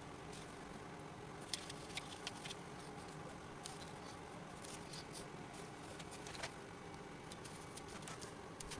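Scattered light clicks and ticks from hands handling small items, with a cluster about one and a half to two and a half seconds in, over a steady low hum.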